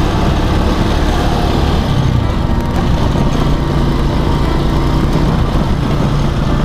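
Motorcycle engine running steadily at low riding speed, heard from the rider's seat, its pitch dipping and rising briefly about two seconds in.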